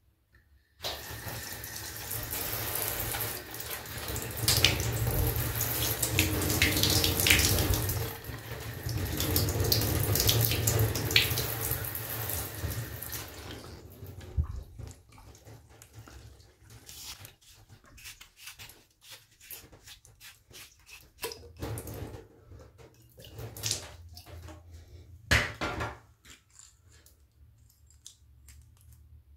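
Water running steadily from a bathtub tap or shower for about twelve seconds, then stopping. After it, scattered light clicks and knocks of a metal shower hose's nut and fittings being handled and unscrewed, with one louder knock near the end.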